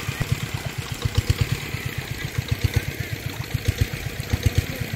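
Small engine running steadily with a fast, even low chugging.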